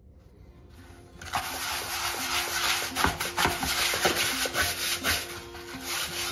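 A small dish brush vigorously scrubbing dried flour out of a coiled rattan banneton. The bristles scratch back and forth against the cane ridges in quick strokes, faint at first and much louder from about a second in.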